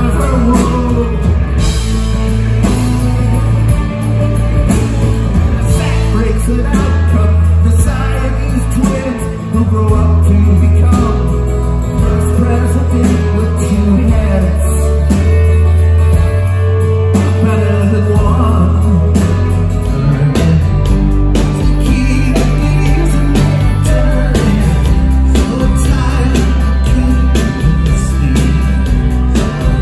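Rock band playing loud live, with a singer over electric and acoustic guitars and a drum kit keeping a steady beat.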